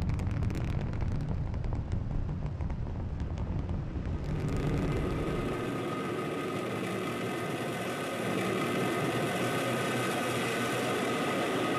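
Rocket engine roar from a SpaceX Super Heavy booster's Raptor engines firing during its descent burn. It opens as a deep rumble with crackling. About four seconds in it turns into a brighter, hissing roar with steady high tones, and the deepest rumble drops away soon after.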